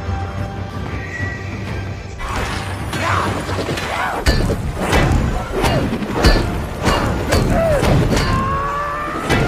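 Film action soundtrack: music under a run of heavy crashing and shattering impacts, starting about two seconds in, as a fighting staff smashes through a crystal wall and it bursts into shards.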